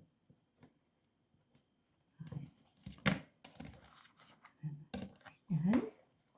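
Soft rustling and crinkling handling sounds in short scattered bursts, with a brief low murmur of a person's voice rising in pitch near the end.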